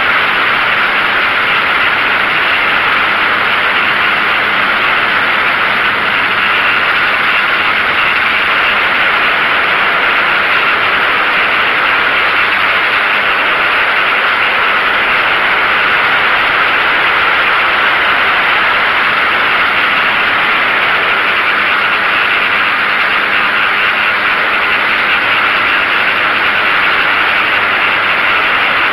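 DJI F550 hexacopter's six motors and propellers running steadily while it hovers, heard as a loud, even rushing noise through the camera mounted on the craft.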